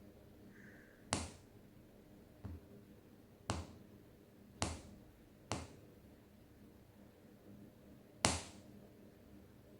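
Sharp, separate clicks and taps of small hard objects, about six at uneven intervals, the loudest one near the end. They come as the phone's camera-glass repair is being worked on.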